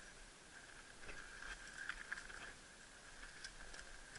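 Faint footsteps and crackling of dry brush and twigs, in scattered small clicks that are a little louder about one to two seconds in.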